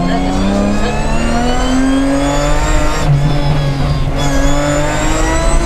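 BMW 325 Group A rally car's straight-six engine heard from inside the cabin, accelerating hard with rising pitch. The pitch drops back at gear changes about three and four seconds in, then climbs again.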